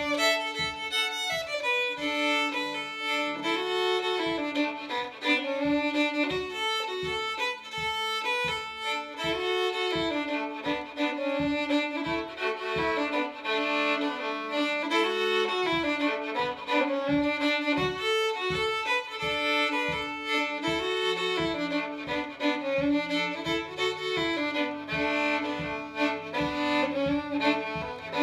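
Solo fiddle played with the bow: a lively tune of quick notes going round a repeating phrase.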